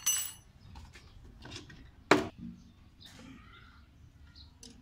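Small metal hand tools and bolts clinking during bolt fitting on a motorcycle engine cover: a sharp ringing metallic clink at the start, a few light taps, and one loud sharp knock about two seconds in.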